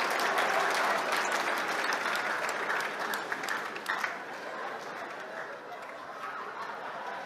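Audience applauding, many hands clapping at once, the applause gradually dying down.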